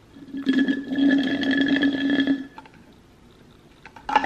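Slurping the last of a sweet glucose-tolerance-test drink through a straw from a nearly empty plastic bottle, a gurgling draw lasting about two seconds. A short click comes near the end.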